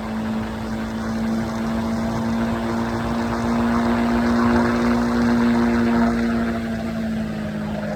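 Triumph Scrambler 400X's single-cylinder engine and exhaust running at a steady highway cruise, with wind noise. The pitch creeps up slightly, then eases down near the end as the throttle comes off.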